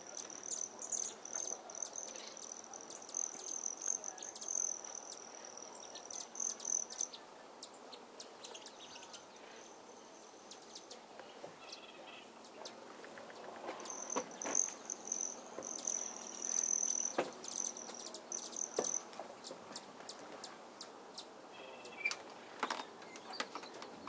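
Insects buzzing in a high, steady drone that breaks off about seven seconds in and starts again about halfway through, with scattered short clicks and a couple of brief bird chirps.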